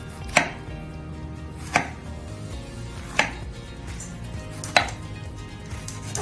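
Santoku knife chopping through a pickle and striking a wooden cutting board: four sharp chops about a second and a half apart.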